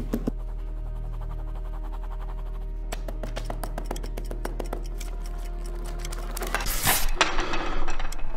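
A ballpoint pen tip jabbing the page of a lined notepad in quick repeated ticks, over a steady low hum and held drone tones. Near the end the page tears loudly.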